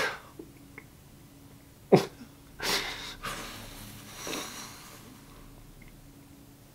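A man crying without words: a few sniffs and shaky, sobbing breaths, with a sharp catch of breath about two seconds in.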